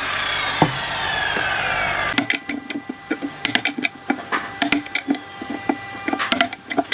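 A power tool winds down with a slowly falling whine over about two seconds, then stops; after that comes a run of sharp, irregular clicks and taps of wood on wood.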